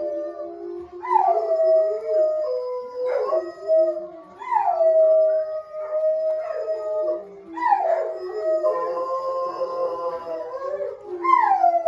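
Several dogs howling together in overlapping long howls, each starting high and sliding down to a held note, with fresh howls breaking in about every three seconds.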